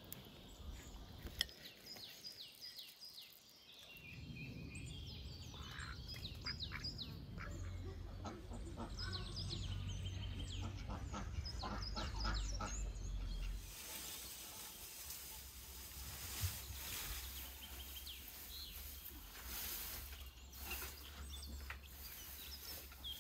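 Farmyard ambience: domestic fowl calling, with small birds chirping over a low rumble. About fourteen seconds in, the sound changes to a steady hiss with scattered calls.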